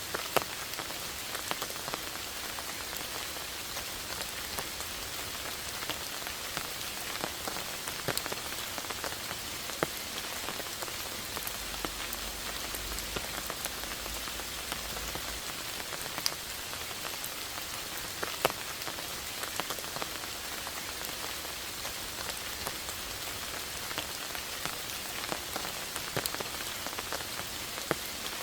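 Steady rain falling on moss and leaves: an even hiss with many close, individual drops ticking.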